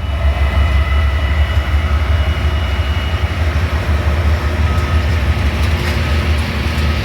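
Loaded coal train rolling by close at hand behind GE diesel locomotives: a steady heavy low rumble of engines and wheels, with faint steady whining tones in the first few seconds.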